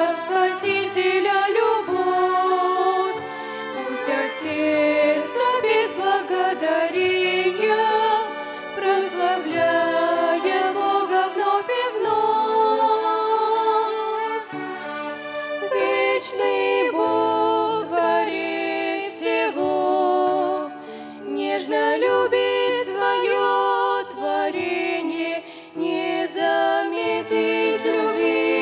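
A violin ensemble playing the melody of a harvest hymn in several parts: an instrumental passage of sustained, bowed notes with vibrato.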